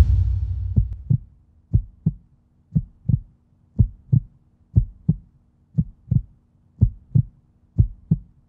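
Heartbeat sound effect: paired low thumps, lub-dub, about once a second, over a faint steady hum. It follows a loud boom that dies away over the first second.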